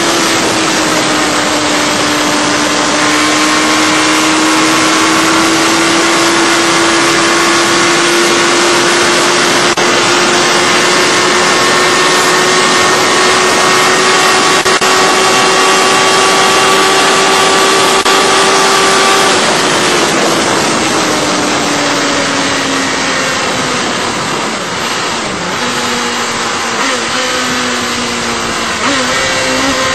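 Sport motorcycle engine held at high revs at very high speed, its note rising slowly, then falling away about twenty seconds in as the bike slows, with heavy wind rush over it.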